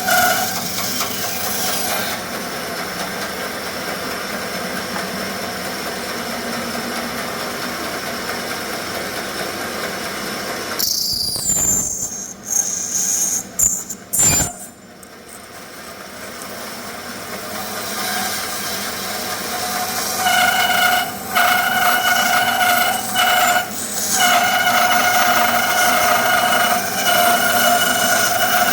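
Band saw running and cutting through thick wenge hardwood, with a steady tone while the blade is in the wood. About eleven seconds in the sound drops away with a few knocks, then builds back up, and the cutting tone returns around twenty seconds in.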